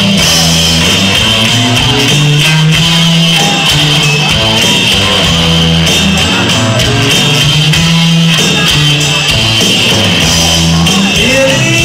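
A live band playing an instrumental passage: keyboards, electric guitar and drums at a steady beat, with sustained bass notes changing about every second.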